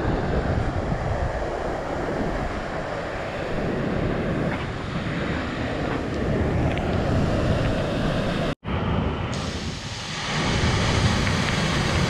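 Steady rushing noise of a waterfall pouring into a pool, mixed with wind buffeting the microphone. The sound drops out for an instant about two-thirds of the way in.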